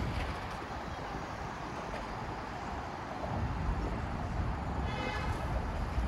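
Outdoor city ambience: a steady low rumble of road traffic, with a brief high-pitched tone about five seconds in.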